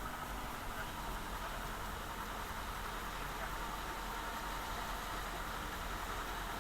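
Jeep engine running steadily: an unbroken low drone under a constant hiss.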